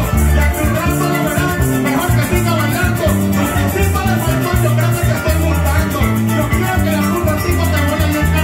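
Live Venezuelan llanero joropo played by a band: llanero harp, cuatro, electric bass and maracas, with the maracas keeping a fast, steady shaken rhythm over plucked harp and cuatro lines and a walking bass.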